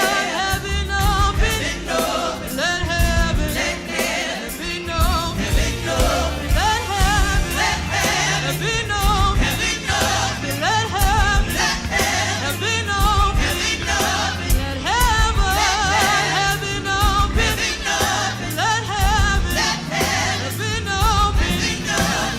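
Live gospel worship music: a singer and choir with vibrato over a band with steady bass and drums.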